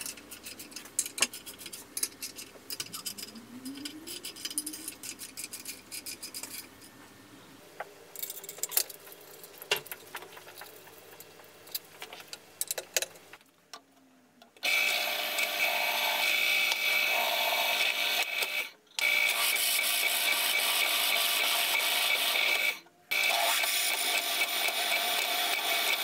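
Light metallic clicks and ticks of a wrench working nuts and bolts on a metal mounting bar. About halfway through, a drill press starts cutting a hole through a flat metal bar: a loud steady grinding whine with a high tone, broken off twice for a moment.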